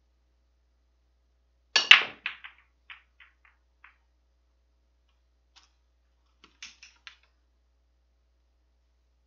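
Nine-ball break: a quick, loud double crack of cue on cue ball and cue ball into the rack about two seconds in, then a scatter of fading ball-on-ball clicks over the next two seconds. A few fainter clicks around five and a half to seven seconds in as the rolling balls meet again.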